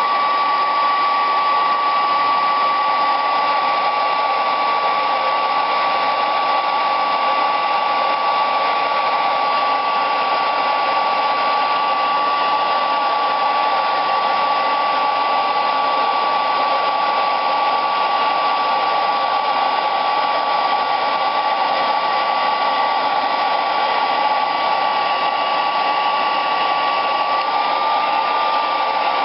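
Hair dryer running steadily, blowing hot air to shrink heat-shrink tubing over a sleeved fan cable: an even rush of air with a steady whine over it.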